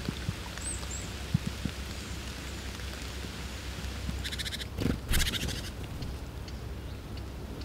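Woodland pond ambience: a steady hiss with a few soft clicks and a brief high chirp about a second in. A little past four seconds and again just past five, two short, rapid rattling bursts come, with a low thump between them.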